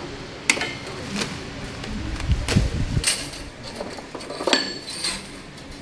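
Packing straps on a pallet cut with tin snips: a sharp snap with a short ring about half a second in. Then plastic stretch wrap rustles as it is pulled off, with low thumps of handling around two to three seconds, and a ringing metallic clink about four and a half seconds in.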